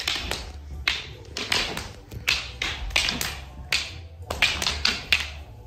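Rattan eskrima sticks clacking against each other in quick, irregular strikes during a partner drill, about three a second.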